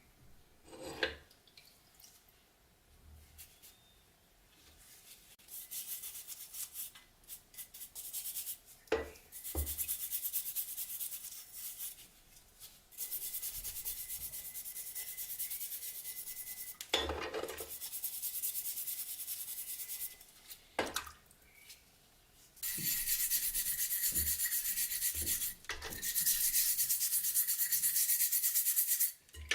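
Rust being abraded off a metal padlock: long stretches of steady, hissing scraping that stop and start abruptly, with a few short knocks as the lock is handled in between.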